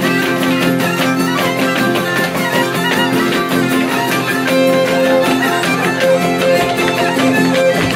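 Ceteră, the Romanian folk fiddle, playing a lively dance tune over a steady rhythmic accompaniment.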